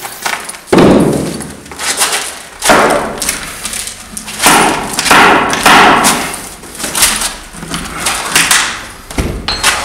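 A run of about ten loud, irregularly spaced thuds and knocks, each trailing off into a rough scrape or rattle, in a crumbling old building.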